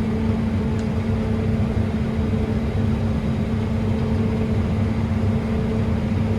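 A vehicle engine running at a steady speed: a constant low hum with a steady drone that does not change.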